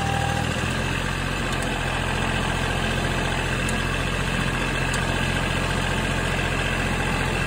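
Ford 1710 tractor's three-cylinder diesel engine idling steadily.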